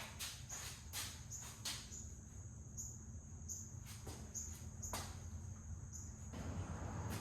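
Cricket chirping faintly: a steady high trill with short chirps repeating roughly once or twice a second.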